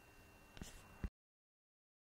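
Near silence: faint recording hiss with a couple of small clicks, cutting off suddenly to dead silence about a second in.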